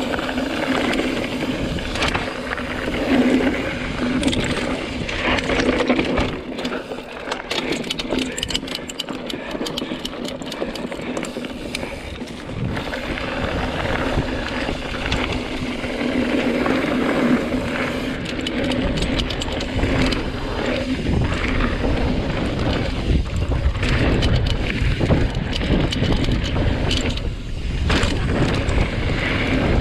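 Mountain bike ridden along a dirt trail, heard from an action camera mounted on the rider or bike: steady tyre and drivetrain noise with many clicks and rattles over rough ground. Wind buffets the microphone as a low rumble, heavier in the second half.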